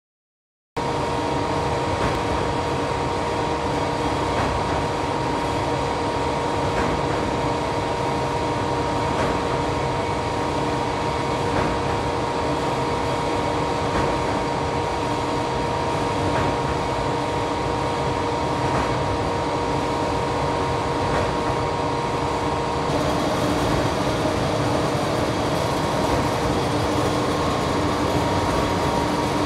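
Two-layer blown film plant running: a steady mechanical hum with a steady tone, and a faint tick about every two and a half seconds. It cuts in about a second in and changes slightly in character near the end.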